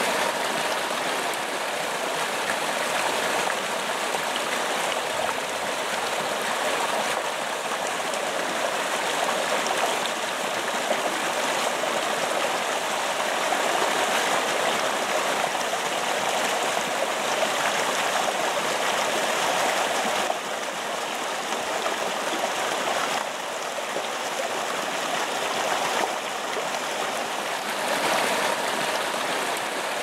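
Water cascading over rocks in a small stream or waterfall, a steady rushing and splashing.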